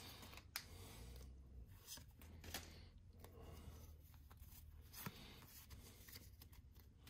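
Faint rustle and soft flicks of Pokémon trading cards being handled and slid through the hands, with a few scattered light clicks.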